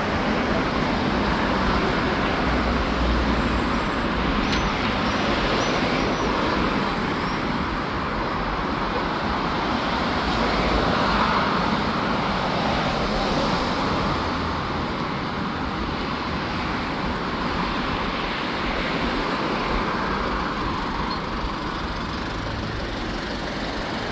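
Steady city road traffic: cars and other vehicles running past, swelling and fading slowly.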